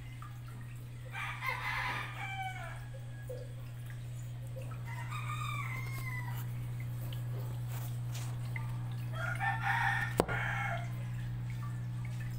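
Three pitched animal calls of about a second each, a few seconds apart, over a steady low hum, with a single sharp click about ten seconds in.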